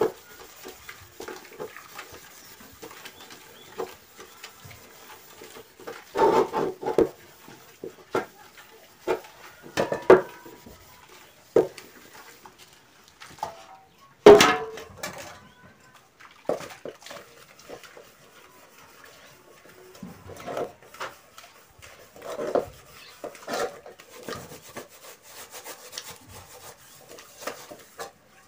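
Metal cooking pots being scrubbed with steel wool in soapy water: scraping and rubbing, small splashes, and knocks and clanks as pots are handled. The loudest is a ringing clang of a pot being set down about halfway through.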